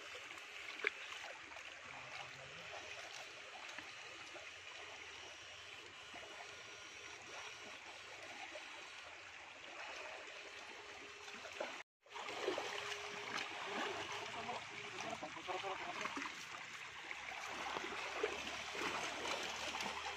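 River water rushing and trickling steadily, with a single sharp click about a second in; the sound cuts out for a moment about twelve seconds in and comes back a little louder.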